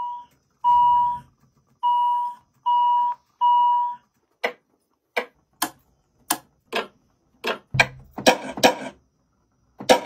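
Short electronic beeps, all at one pitch, repeated five times, then a string of sharp clicks and knocks that come faster near the end. These are samples being played back and arranged into a beat.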